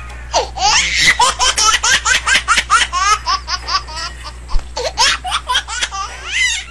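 A person laughing hard: a long fit of quick, repeated laughs, rising and falling in pitch, lasting about six seconds over a low steady hum.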